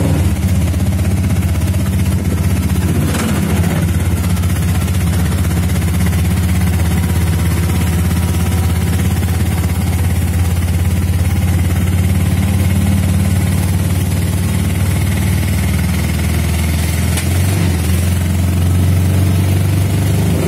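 Vehicle engine running steadily, heard from inside the moving vehicle, with a low, even drone; about three quarters of the way through the note briefly eases and then picks up again.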